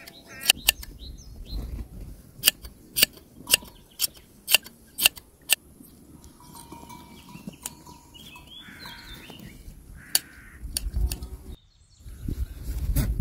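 Hand blade shears snipping through a sheep's fleece, a sharp metallic snip about twice a second for the first five seconds or so. Later a few bleats come from the flock.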